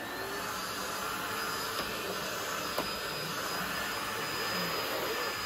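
Cordless stick vacuum cleaner running steadily over carpet, its motor giving a steady high whine over a rush of air.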